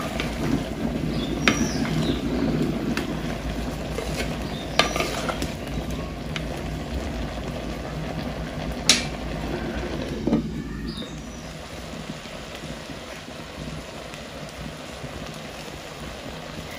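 Clay pot of tender jackfruit with water and coconut oil cooking over a wood-fire stove: a steady sizzling, bubbling hiss with a few sharp clicks. It turns quieter about eleven seconds in.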